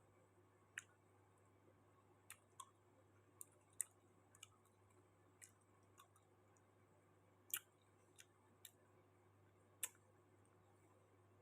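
Quiet mouth clicks and smacks from eating santol fruit, about a dozen sharp ticks at uneven intervals over near silence.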